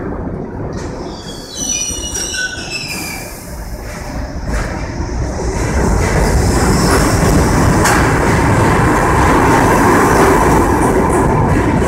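R68A subway train pulling out of the station and gathering speed past the platform, its running noise of wheels on rails building from about four seconds in and then staying loud.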